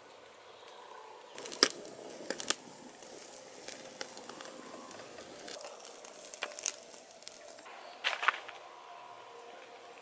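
Small wood fire crackling, with scattered sharp pops. The loudest pops come about a second and a half in and again near eight seconds.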